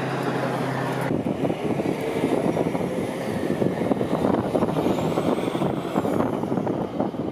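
Road traffic passing, a semi-truck pulling a tanker trailer among it, with a rough, fluttering noise over the whole stretch. A steady engine hum before it cuts off abruptly about a second in.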